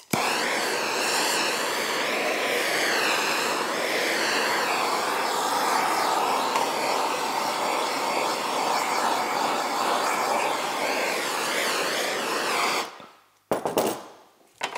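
Handheld gas torch burning with a steady hiss as its flame heats the plastic ski skin tip to soften it for remolding. The flame shuts off near the end, followed by a few knocks.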